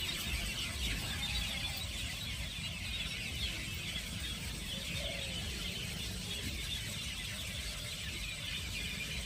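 Birds chirping in a dense, continuous chorus of many overlapping high calls, over a steady low rumble.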